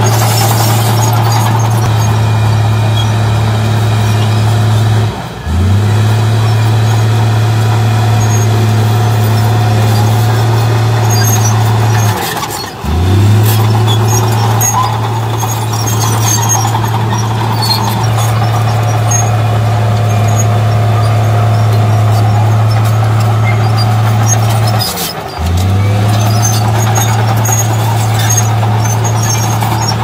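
Komatsu D53P crawler bulldozer's diesel engine running hard at a steady pitch while the blade pushes soil. Three times, about 5, 13 and 25 seconds in, the engine note sags briefly and then picks back up.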